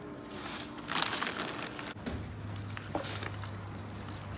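Thin plastic shopping bags rustling and crinkling in irregular bursts as purchases are bagged and carried. A low steady hum starts about halfway through.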